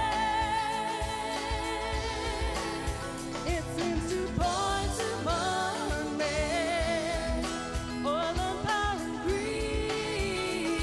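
Pop song with a solo vocal, held notes sung with vibrato over a steady beat and band accompaniment.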